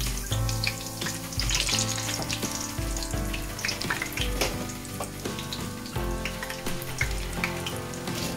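Hot cooking oil sizzling and frying in an aluminium pot as a handful of dried fenugreek leaves is dropped in among whole spices. Background music with a pulsing bass plays along.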